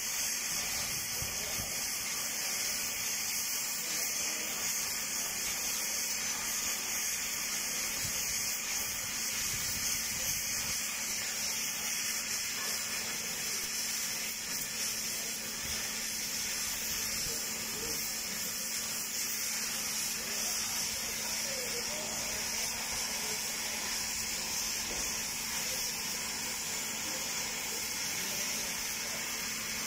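Oxy-acetylene torch flame hissing steadily as it burns against a steel pipe.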